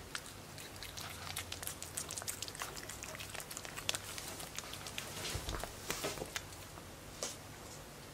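Pekingese puppy lapping Churu paste treat from a squeeze tube: quick, irregular wet licking and smacking clicks, several a second, that stop shortly before the end.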